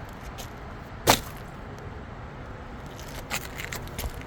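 Asphalt roof shingles being handled: one sharp crack about a second in, then a few lighter crackles and scrapes a couple of seconds later.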